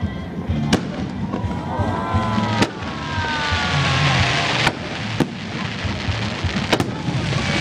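Aerial fireworks going off at close range: about six sharp bangs over a continuous crackling hiss and rumble.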